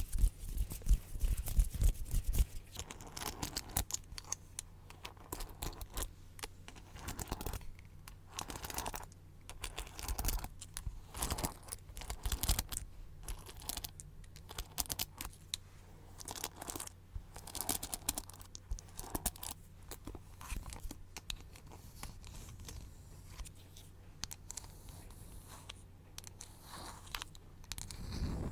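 Close-miked ASMR trigger sounds: quick, irregular crackly strokes, densest in the first couple of seconds and sparser after.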